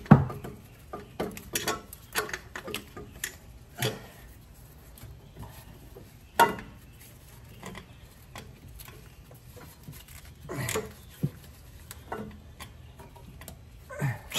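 Hand tools clinking and clicking against the metal of an engine's exhaust manifold nuts and studs while a nut is worked loose. The clicks are irregular, sharpest just after the start, and one about six and a half seconds in rings briefly.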